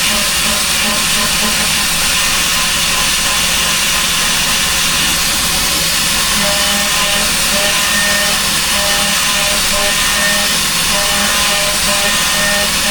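TechCNC AP4060 benchtop CNC router milling aluminum: the spindle runs and the cutter bites steadily, a continuous hissing noise with faint steady whining tones running through it.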